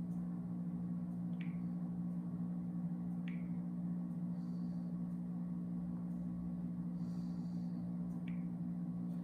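Steady low hum of room background noise, with three short, sharp, falling chirps about a second and a half in, about three seconds in and near the end.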